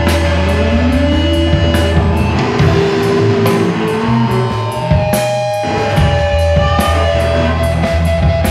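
Instrumental experimental rock: electric guitars, bass and drum kit playing over a heavy, steady bass line. A tone slides upward about half a second in, and the low end briefly drops out around the middle.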